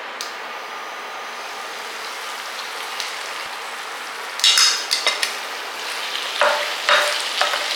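Brinjal (eggplant) pieces frying in oil in a pan, with a steady sizzle. From about halfway through, a spatula stirs and scrapes them in several louder strokes.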